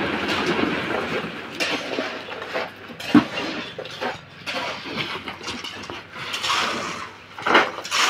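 Metal pans of wet concrete clanking and scraping as concrete is tipped into steel column formwork, with irregular knocks, the sharpest about three seconds in.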